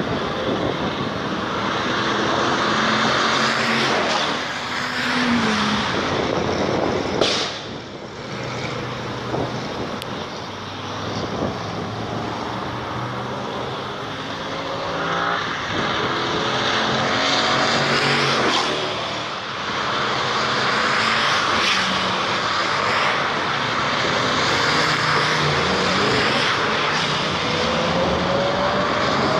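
Sports cars driving down a race circuit's straight, their engines rising in pitch several times as cars accelerate past.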